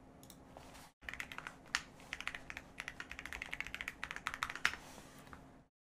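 Computer keyboard typing: a quick, irregular run of keystrokes starting about a second in and stopping shortly before the end.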